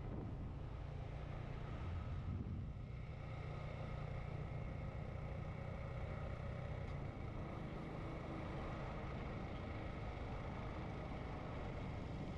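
Motorcycle engine running at a steady pace while riding, a low, even drone with rushing road and wind noise over it.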